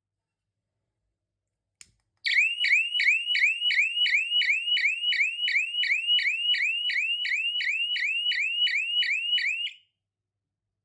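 Homemade electronic fire alarm circuit sounding a siren of quick rising chirps, about three a second, for several seconds. A single click comes just before the siren starts, and the siren cuts off abruptly near the end.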